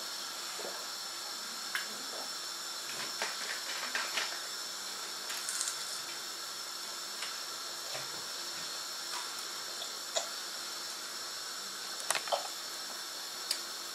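Steady hiss of a pot of soup heating toward the boil on the stove, with a few short soft clicks and taps scattered through it.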